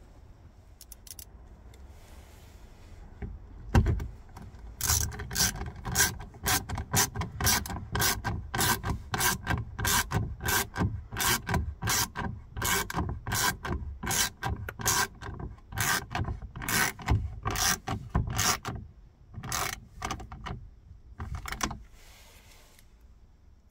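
A sharp knock, then a long run of short, rasping strokes of hand-tool work, about two to three a second, that stops near the end.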